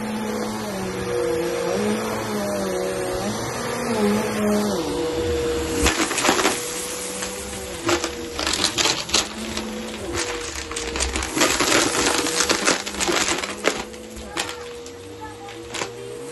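Vacuum cleaner motor running, its pitch wavering at first as it is pushed over carpet. From about six seconds in, irregular rapid clicks and rattles of hard bits against the machine join the steady hum, thinning out near the end.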